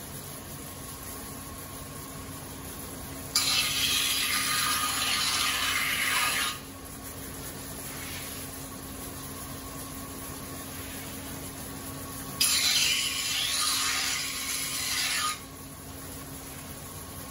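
Edo-style usuba knife being ground on a rotating sharpening wheel stone. There are two grinding passes of about three seconds each, one a few seconds in and one past the middle, over the steady hum of the running wheel. This is the flat of the blade being evened out for a mirror finish.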